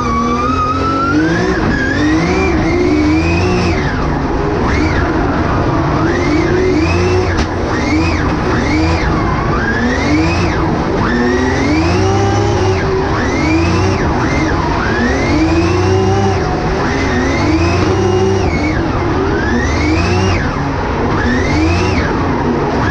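Drift car's engine heard from inside the cabin, revved hard and repeatedly: the pitch climbs and then drops sharply, over and over, roughly once every second or so, as the throttle is worked through a drift.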